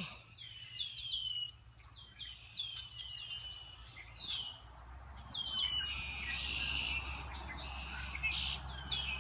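Black-capped chickadees calling: many short high notes that sweep downward, repeated over and over, with buzzier, denser notes from about five seconds in.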